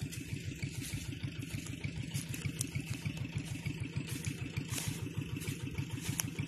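Small engine running steadily, with a rapid, even low pulsing that stays unchanged throughout.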